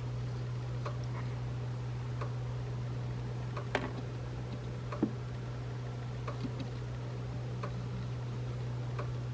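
A steady low hum with faint, evenly spaced ticks about every second and a half, and two light knocks about four and five seconds in.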